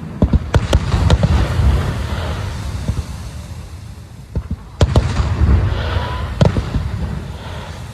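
Fireworks exploding: a quick cluster of sharp bangs near the start and another about five seconds in, with a low rolling rumble of bursts and echoes between them.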